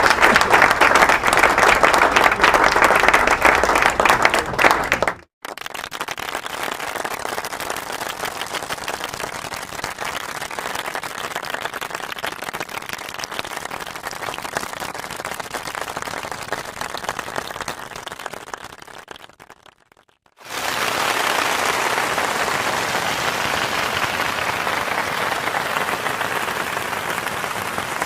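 Audience applause, three separate stretches back to back. The first is loud and dense and cuts off abruptly about five seconds in. The second is quieter and fades out near twenty seconds, and after a brief silence a third begins and slowly tapers.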